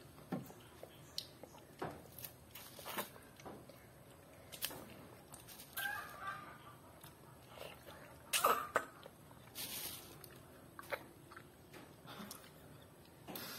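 Rambutan being peeled and eaten: a scatter of soft clicks and mouth smacks, with a louder cluster about two-thirds of the way through.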